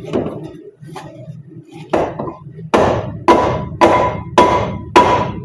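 A sledgehammer beats on the steel front suspension of a 2008 Ram 2500 to break the seized ball joint loose from the spindle. There are a few scattered blows, then a steady run at about two a second, each ending in a short metallic ring.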